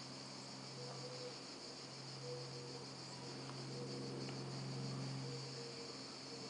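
Steady background drone: a low hum with a continuous high-pitched shrill band above it, and faint short tones coming and going.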